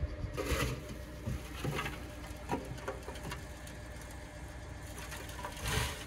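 Diesel engine of heavy earthmoving machinery running with a steady low rumble, broken by irregular clanks and short rushes of noise, loudest about half a second in and again near the end.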